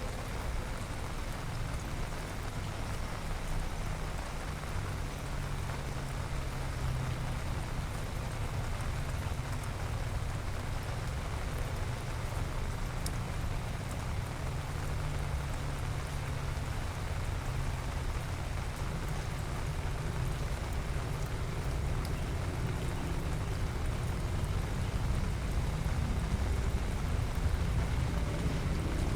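Steady rain falling and pattering on surfaces, with a steady low rumble underneath.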